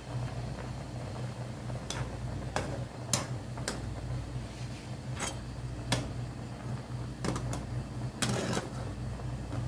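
Metal ladle clinking and scraping against a pan of boiling stew as it is stirred, a dozen or so scattered sharp clicks, over a steady low hum.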